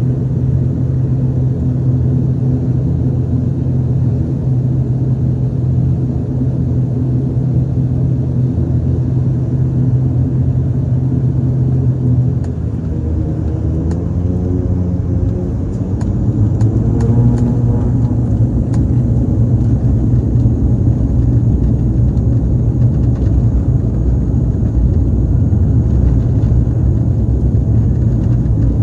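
Aircraft engines heard from inside the cabin during takeoff: a loud, steady low drone that dips about halfway through, then rises in pitch and runs louder as the engines come up to power.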